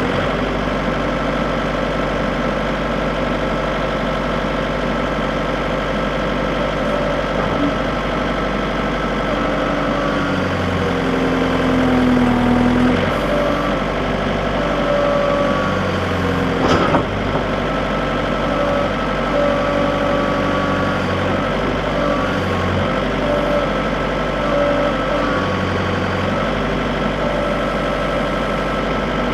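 John Deere 110 backhoe's engine running steadily, with whining tones that shift in pitch as the machine works. One sharp knock about two-thirds of the way through.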